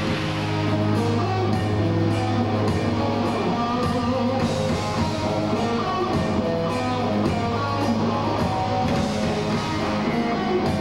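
Heavy metal band playing live: distorted electric guitars, bass guitar and drum kit, kicking in together at the very start and then playing on loud and steady.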